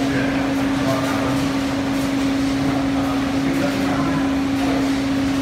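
Large 35 kg drum coffee roaster running, a steady machine hum with one constant pitched tone, under faint background voices.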